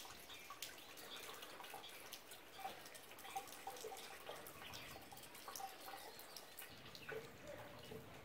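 Faint rainwater dripping: many small drops landing at irregular moments.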